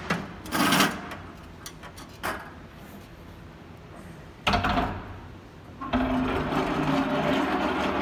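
Steel pipe clamps on a glued-up wood panel clanking as the clamped panel is lifted: a sudden loud clatter about four and a half seconds in, then a steady rattle as it is carried.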